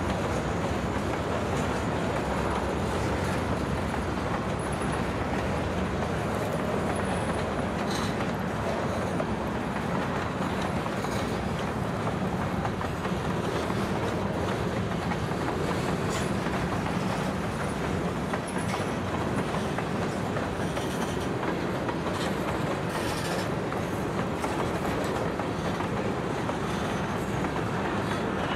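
Covered hopper cars of a long freight train rolling past at close range: a steady rumble and clatter of steel wheels on the rails, with a few sharper knocks along the way.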